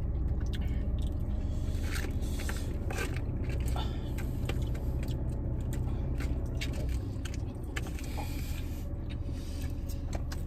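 Steady low rumble of a car heard from inside the cabin, with scattered short clicks, crinkles and scrapes of takeout containers being handled during eating.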